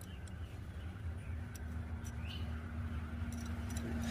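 Low steady hum with a few faint, light clicks; a faint steady tone joins about a second in.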